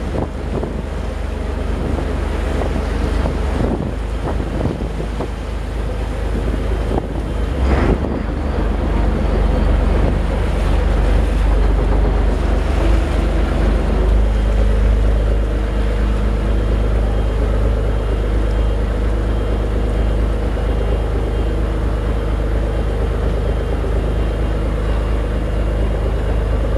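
Yamaha DY45 boat under way: its engine runs with a steady low drone while water rushes along the hull and wind buffets the microphone. About halfway through, the splashing wash dies down and a steadier engine hum with clear tones takes over.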